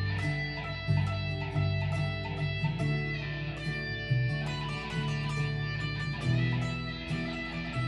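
Fender JA-90 Telecaster Thinline electric guitar with P-90 pickups, on the middle pickup selector position, playing a run of plucked lead notes in A major through an amp with effects. It sits over a backing track with sustained bass notes.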